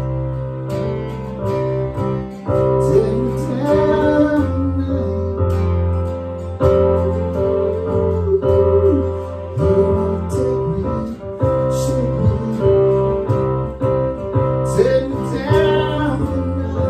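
Acoustic guitar and a Roland RD-700 digital stage piano playing a song together, with a wavering melody line, likely a voice, coming and going over the chords.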